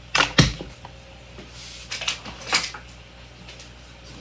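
Clatter of hard objects being handled and knocked together: two sharp knocks in quick succession, then two softer clacks about two seconds later.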